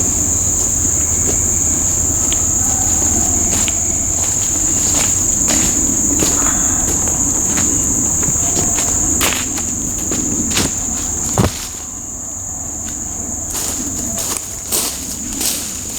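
Steady high-pitched insect chorus that stops about 11.5 seconds in and starts again near the end. Under it are a low rumble in the first part, scattered clicks and rustles like footsteps in leaf litter, and one sharp knock just as the insects stop.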